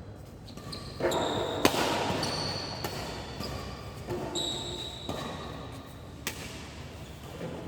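Badminton rally: sharp cracks of rackets striking a shuttlecock, the loudest about one and a half seconds in, with short high squeaks of shoes on the court floor between the hits.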